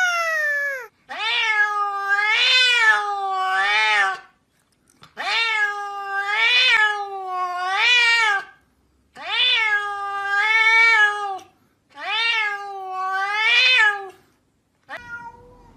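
A domestic cat meowing in long, warbling, complaining meows, four of them with short pauses between, while it is being petted on the head. At the very start a different cat gives one short cry that falls in pitch.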